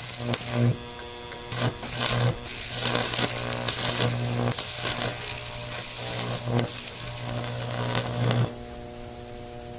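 Electric arc from a microwave-oven-transformer high-voltage pencil (about 2300 volts) burning across an old phone, a loud buzzing hum with crackling, broken by a few short dips. Near the end the crackle stops, leaving a quieter steady hum.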